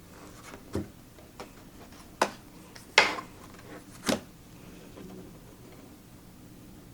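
Tarot cards and deck boxes being handled: about five light taps and clicks over a few seconds, the loudest about three seconds in.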